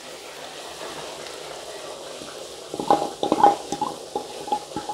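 Chicken and its released juices sizzling and simmering in a pan. From about three seconds in, a spoon knocks and scrapes against the pan again and again, with a short metallic ring on some strokes, as ground masala paste is spooned in.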